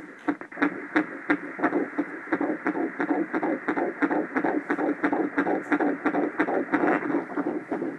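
Fetal heartbeat played as pulsed-wave Doppler audio by a Voluson S6 ultrasound machine, at 11 weeks 5 days of pregnancy: a fast, even whooshing pulse of about three beats a second.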